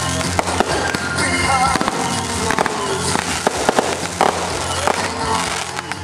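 Fireworks going off: repeated bangs and crackles of small aerial shells, several within a few seconds, with music playing along.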